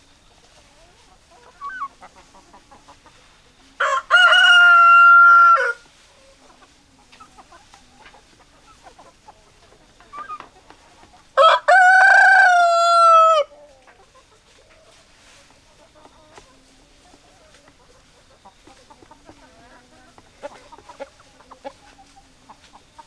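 Rooster crowing twice, each crow about two seconds long and ending in a long held note, with hens clucking softly between the crows.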